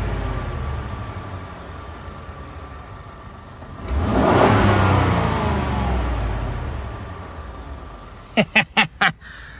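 The 3.5-litre EcoBoost twin-turbo V6 of a 2016 Ford F-150 being revved while the truck stands still. It drops back from one throttle blip, is revved sharply again about four seconds in, then settles back toward idle, with the turbochargers coming in audibly on the rev.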